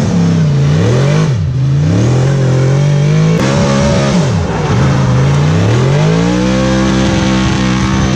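NASCAR V8 engine of a drift car revving hard on track. Its pitch repeatedly climbs and drops sharply as the throttle is worked, then climbs again and holds a steady high note near the end.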